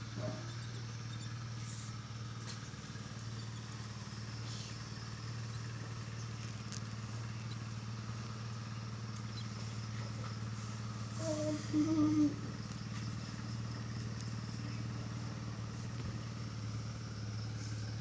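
A steady low hum, like a motor running, with a brief pitched sound about eleven seconds in.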